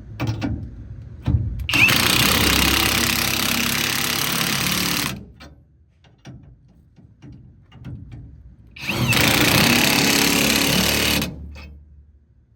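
Impact wrench run twice, in bursts of about three and a half seconds and two and a half seconds, each starting with a short rising whine as the motor spins up, tightening nuts on the truck's lowering clamp. Light clanks of the tool and parts sit between the bursts.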